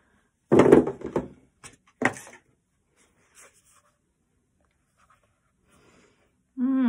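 Cards and their cardboard packaging handled on a wooden table: a thud about half a second in, a sharp knock about two seconds in, then a few faint taps. Near the end there is a brief vocal sound from a woman.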